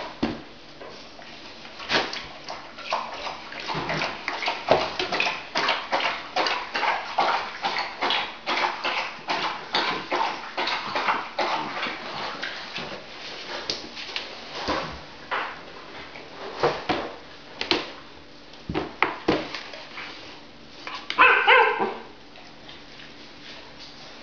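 Giant Schnauzer puppy scrabbling and knocking about in a plastic basket on a tiled floor: a long run of quick scratches and knocks, then scattered thumps. Near the end there is one short high-pitched dog yelp.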